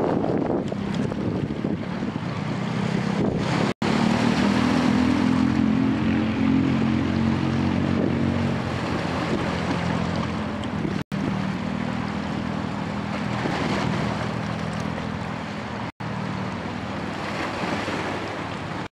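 Inland cargo barge's diesel engine passing on the river with a low, steady drone that swells for a few seconds, fades, and swells again, over a wash of wind on the microphone. The sound drops out to silence briefly three times.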